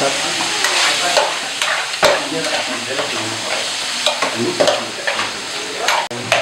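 Cubed meat and onions sizzling in a frying pan while a utensil stirs them, scraping and knocking against the pan again and again over a steady hiss of frying.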